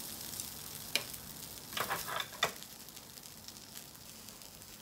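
Skewered dango sizzling steadily in a rectangular frying pan as they brown, with a few light clicks of wooden chopsticks between one and two and a half seconds in.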